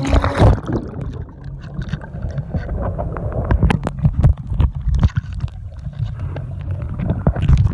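A camera plunging into a swimming pool with a splash, then the muffled sound of being underwater: a dull low rumble with scattered clicks and crackles of water moving around it.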